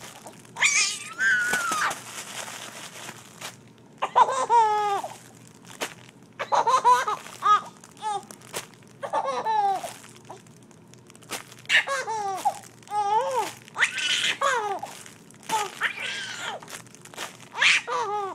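Infant laughing in repeated bursts of giggles and squeals, each about a second long, with short pauses between. A crunchy fabric cube waved over her crinkles between the laughs.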